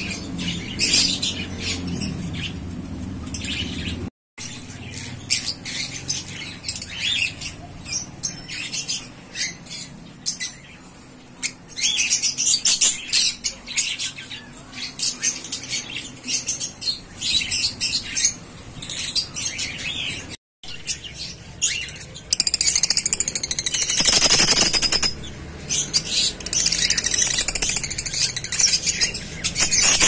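Lovebirds chattering in a cage: many rapid, high-pitched chirps and squeaks, getting louder and denser past the middle. A short rustling burst comes about three quarters of the way through.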